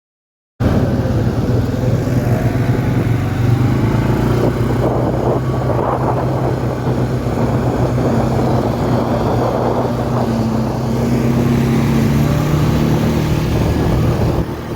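A vehicle engine running steadily at a constant pitch, cutting in abruptly about half a second in.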